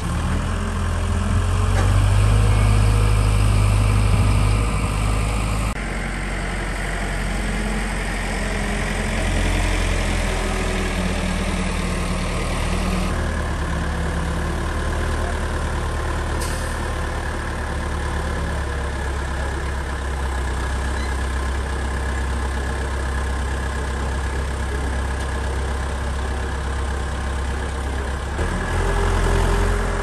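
Telehandler's diesel engine running as it lifts bundles of lumber, louder for a few seconds near the start, then running steadily.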